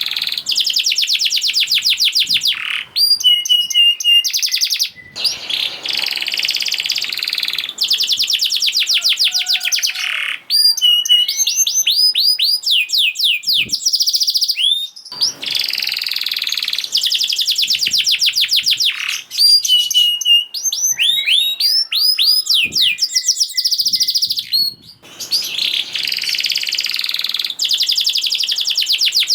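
Domestic canary singing a fast, tightly packed song: long phrases of rapid repeated notes and rolling trills, broken by short pauses every few seconds.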